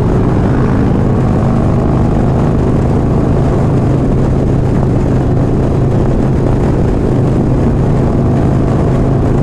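Harley-Davidson V-twin motorcycle engine and exhaust running at a steady cruise, holding one even pitch with no revving, under a steady rush of wind.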